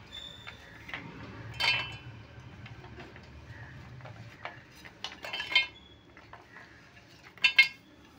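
Pieces of fresh coconut tipped from a steel dish into an empty stainless-steel mixer-grinder jar, with metal clinks and light taps as the pieces land and the dish touches the jar. Three louder clinks come about two seconds apart near the start, middle and end.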